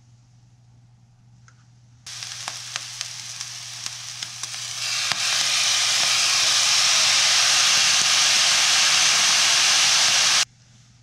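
Food frying in a hot wok for shrimp fried rice: crackling and popping start suddenly about two seconds in, then swell about five seconds in into a loud, steady sizzle that cuts off suddenly near the end.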